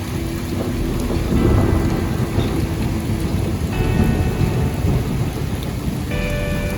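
Heavy rain pouring down in a severe storm, with a low rumble that swells about a second and a half in and again around four seconds.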